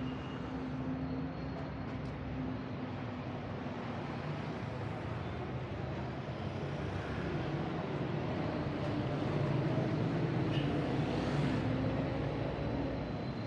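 City street traffic: a steady hum of car engines and tyres on the road, getting a little louder in the second half.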